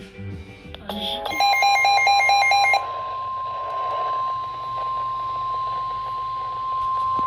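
Weather radio broadcast alert tone: a single steady tone near 1 kHz that starts about a second in and holds, heard over radio static. It is the warning alarm tone that precedes a weather warning message. A rapid, loud on-off beeping sounds over it for about a second and a half near the start.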